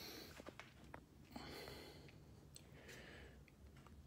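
Near silence: faint room tone with a few soft clicks in the first second and a half.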